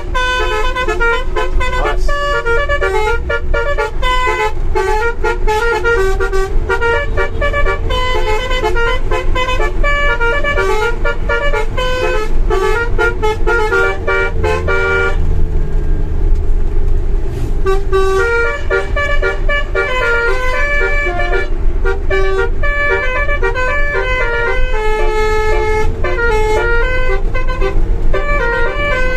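Basuri V3 multi-tone telolet horn on a bus playing a fast melody of short, jumping notes, over a steady low engine rumble. The horn stops for about three seconds around the middle, then starts again.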